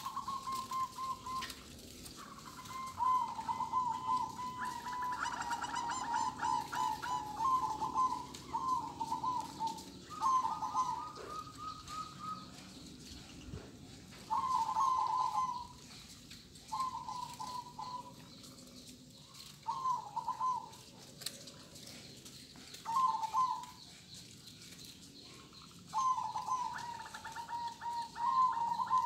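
Caged local zebra doves (perkutut) cooing: repeated phrases of rapid pulsed notes, with pauses of a second or more between them. Now and then a higher trill joins in.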